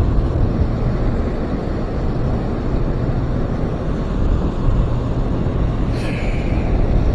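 Steady low rushing of water spilling over a river dam, with wind buffeting the microphone. A single brief click sounds about six seconds in.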